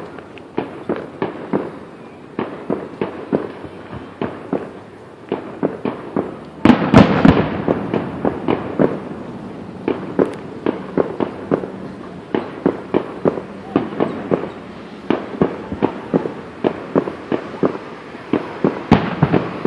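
Fireworks display going off: a rapid stream of sharp crackling pops and bangs, several a second, with a cluster of louder booms about seven seconds in.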